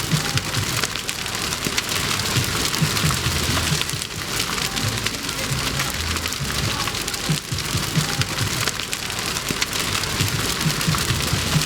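Large bonfire burning, a dense crackling hiss full of small pops and snaps.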